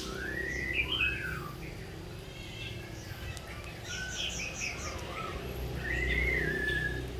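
Songbirds singing and calling: clear whistled notes that glide up and down, and a quick run of about five high chirps a little after the middle.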